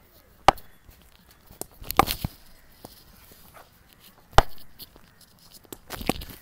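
Sharp knocks of a cricket bat and ball during front-foot drive practice: one about half a second in and a louder one about four and a half seconds in, with scuffing noises between.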